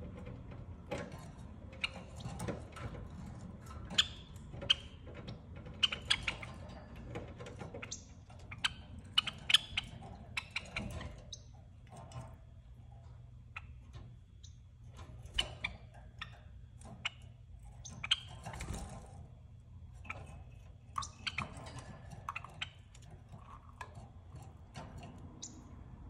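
Java sparrows in a cage pecking at bok choy leaves, with short chirps and sharp clicks scattered irregularly.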